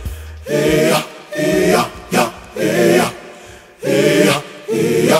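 Vocal outro of a rap song: layered wordless sung vocals in short repeated phrases. The bass beat under them cuts out about half a second in.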